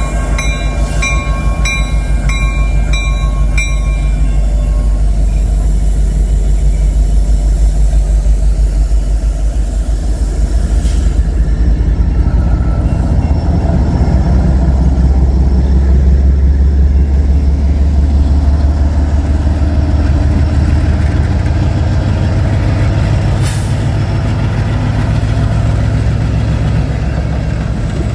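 Diesel freight locomotives passing close by: an EMD SD75I, then a GE ES44DC whose GEVO engine gives a deep rumble as it throttles up, loudest around the middle. A bell rings about twice a second for the first few seconds.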